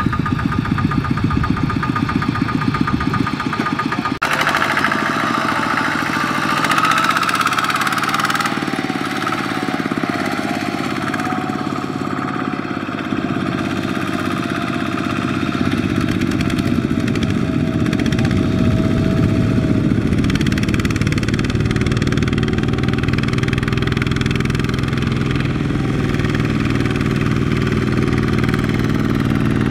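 Single-cylinder diesel engines of two-wheel walking tractors (power tillers) running while they pull trailers of rice sacks. There is a fast, even chug at first, then an abrupt change about four seconds in to a smoother engine sound with a faint whine that wavers in pitch.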